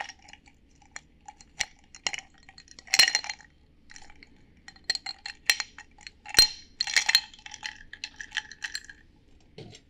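Ice cubes clinking in a tall drinking glass as they are added with tongs and stirred with a long spoon. Irregular clinks, each with a short glassy ring, loudest about three seconds in and again about six and a half seconds in.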